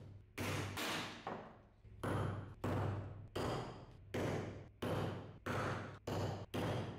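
Hand axe chopping into a piece of wood on a chopping block: a steady run of sharp chops, about two a second, each blow dying away quickly.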